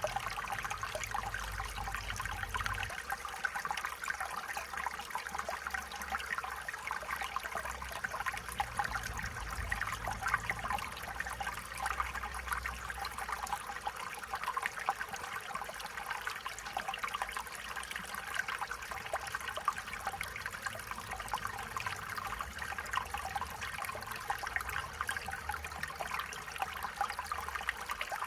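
Stream water running and trickling steadily over stones, a continuous burbling with many small splashes.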